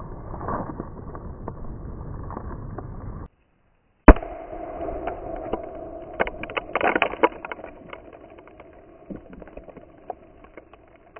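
Outdoor noise, then after a brief dropout a single sharp, loud bang about four seconds in, followed by quieter noise with scattered clicks that fades out.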